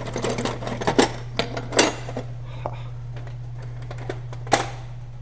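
Steel hand tools clinking and clanking as sockets and a wobble extension are handled on an engine: a run of sharp metallic clicks in the first two seconds, then one loud clank about four and a half seconds in.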